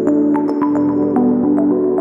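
Background music: ambient electronic music with sustained synth notes over a light, steady beat.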